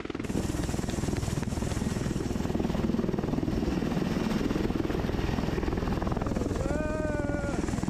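Military rotorcraft hovering close by: heavy, steady rotor chop with engine noise, the downwash of a fast-rope insertion. A short shouted call cuts through near the end.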